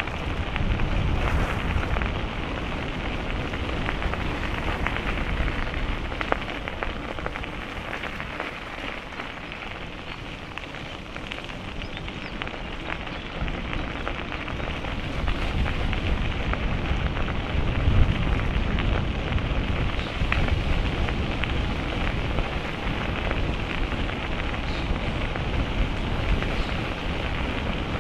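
Steady rushing noise of a bicycle ride: wind buffeting the action camera's microphone and tyres rolling on the path, with occasional small clicks from the bike. The rumble eases for a few seconds near the middle, then builds again.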